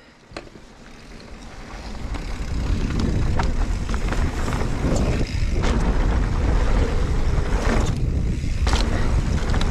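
A mountain bike riding down a dirt trail: wind rushing over the microphone and tyres rolling over the dirt, building up over the first few seconds and then holding, with occasional clicks and rattles.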